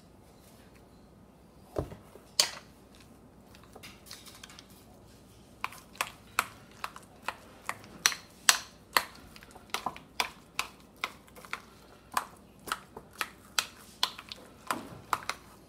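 Metal spoon stirring and mashing egg yolk and mayonnaise in a ceramic bowl, clicking against the bowl's side about two to three times a second from about six seconds in. Before that, a single thump and a click.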